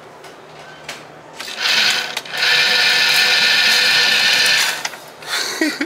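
Electric target-carrier motor at a shooting lane running with a steady whine. It starts about a second and a half in, pauses briefly, then runs for about two seconds more before stopping. A short run follows near the end.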